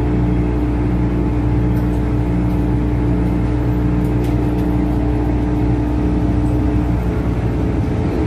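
MTR Tsuen Wan line M-Train electric multiple unit pulling out of a station and gathering speed, heard from inside the carriage: a steady low hum of the traction equipment with a held tone that cuts out about seven seconds in.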